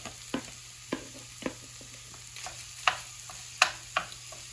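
Wooden spatula stirring and breaking up cold cooked rice in a frying pan, with irregular knocks and scrapes against the pan over a faint sizzle of carrots, onion and garlic frying in oil and butter.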